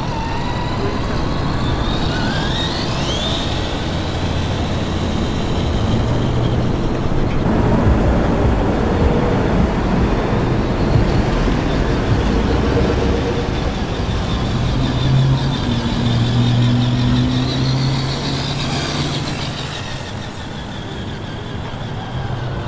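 Engine sound effect played through the speaker on an RC truck with a Traxxas TRX-4 Sport chassis as it drives about on asphalt, running steadily with a low engine drone that shifts in pitch. A rising whine comes about two seconds in.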